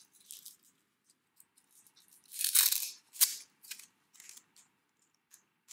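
A Velcro cable strap being wrapped and fastened around a braided earphone cable: soft scratchy handling noises, with one louder rasp about two and a half seconds in and a small click just after.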